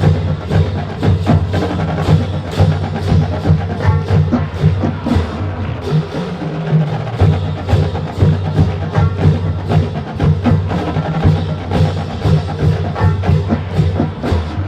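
Marching band playing, with a drumline's rapid stick hits and drum strokes in a steady rhythm over sustained low notes.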